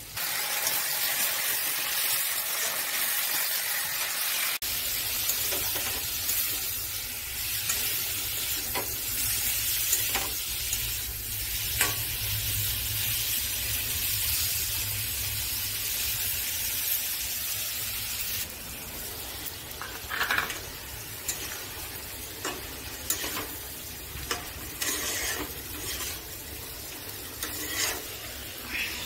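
Prawns and an onion-garlic masala sizzling in hot oil in an iron kadai, with a spatula scraping and stirring them around the pan. The sizzle eases somewhat about two-thirds of the way through.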